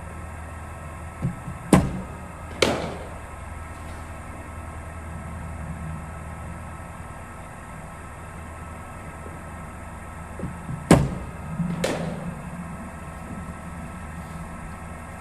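Cricket bowling machine humming steadily with its wheels spinning, and two deliveries played, each heard as a pair of sharp knocks under a second apart: the ball leaving the machine or bouncing, and the bat striking it.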